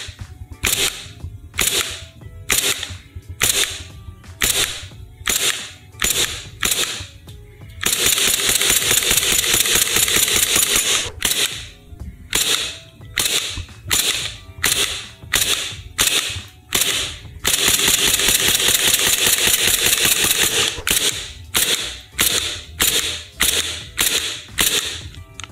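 Gas blowback airsoft pistols (Army Armament R17) firing single shots through a chronograph, about two a second, each a sharp crack with the slide cycling. Twice, for about three seconds, a continuous hissing noise takes over between the shots.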